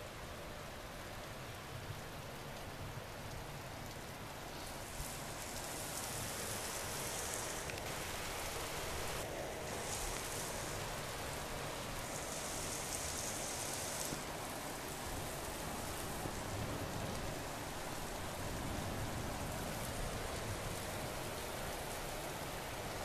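Steady rain falling in a thunderstorm, a continuous even hiss that brightens briefly a few times in the first half.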